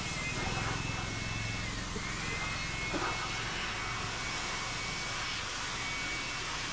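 Water spraying from a garden hose, the end squeezed into a fan of spray, hissing steadily as it hits a person and the wet concrete. A faint high whine runs beneath it, dipping briefly in pitch about two seconds in.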